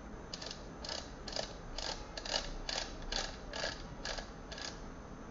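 The zoom head of a handheld LED floodlight being worked in and out by hand: a run of about a dozen short ratcheting, scraping clicks, two to three a second, that stops shortly before the end.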